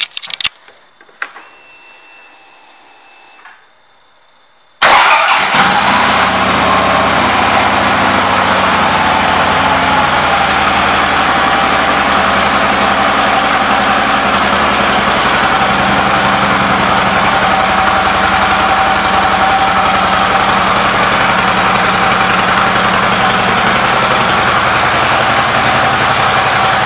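Harley-Davidson Electra Glide Police's Twin Cam V-twin is started about five seconds in, after a brief faint whir, and then idles loudly and steadily.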